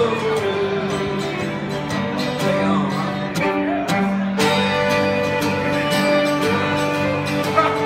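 Live acoustic country music: a strummed acoustic guitar with a bowed fiddle playing held and sliding notes over it.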